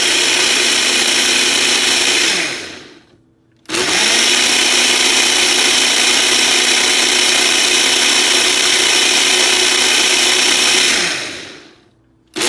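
Ninja single-serve blender blending whole blueberries and milk into a shake, its motor running at a steady pitch. It winds down and stops about two and a half seconds in, starts again a second later and runs for about seven seconds, then winds down once more and restarts right at the end.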